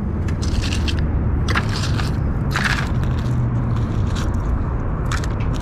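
Scattered crackling and scraping as gloved hands handle a fishing magnet caked with rusty muck and debris, over a steady low rumble.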